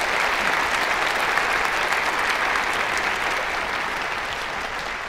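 Large audience applauding, the clapping slowly dying away over the second half.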